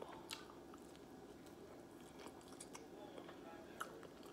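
Faint, close-up chewing of a saucy buffalo chicken wing, with soft wet mouth clicks and a sharper click near the end.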